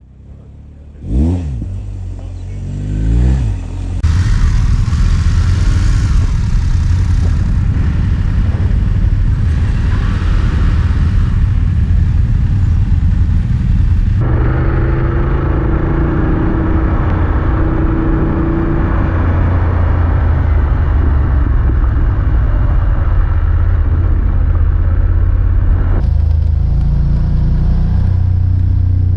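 BMW GS adventure motorcycles riding: an engine revs up and down twice in the first few seconds, then steady engine and wind rumble.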